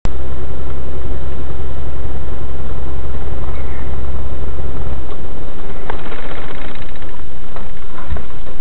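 Loud vehicle cab noise on a dashcam: a steady low engine and road drone that eases after about five seconds, followed by a few sharp knocks.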